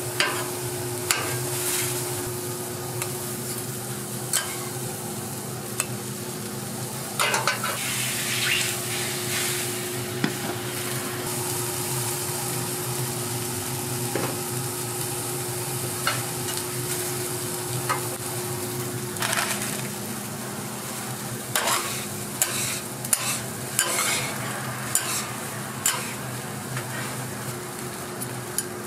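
Eggs sizzling on a hot flat-top griddle with a steady hiss. A metal spatula scrapes and clicks against the griddle now and then, over a steady low hum.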